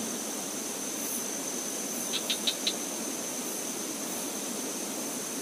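Fast-flowing river rushing steadily, under a steady high insect trill. Four quick high chirps come a little over two seconds in.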